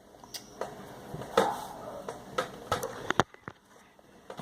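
Plastic spatula scraping and tapping in a bowl of green-dyed glue, with a few sharp clicks.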